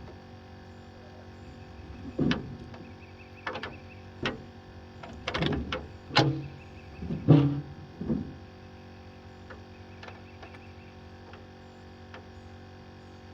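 A scattered run of knocks and clunks from a cast net being handled in a boat, with some hollow, low-ringing thuds against the hull.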